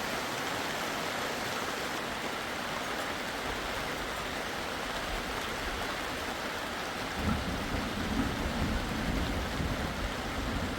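Steady hiss of heavy rain. From about seven seconds in, a low irregular rumbling joins it.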